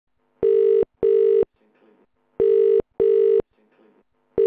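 Telephone ringing tone in the double-ring pattern: pairs of short, steady, buzzy beeps, two full pairs about two seconds apart, with a third pair starting at the end.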